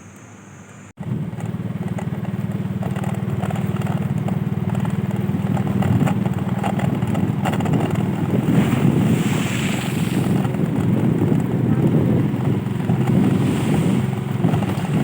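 A motor vehicle's engine running steadily, with wind on the microphone. It comes in suddenly about a second in.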